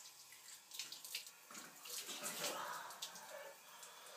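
Faint running water with a few light clicks, swelling for a couple of seconds midway.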